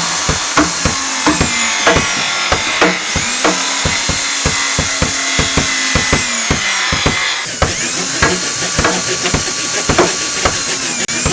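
Background music over a run of sharp, irregular knocks, about two or three a second, from carving tools working lime wood.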